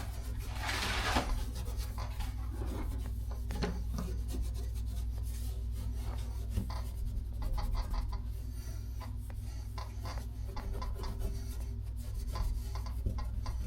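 Hands rubbing and scraping at parts during faucet work, with scattered small clicks and knocks and a longer scrape about a second in, over a steady low hum.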